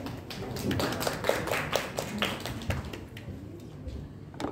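Scattered clapping from a small audience, thinning out after about three seconds.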